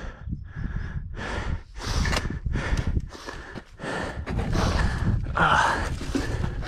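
A man breathing hard and fast right at an action camera's microphone, about two breaths a second, with some footsteps.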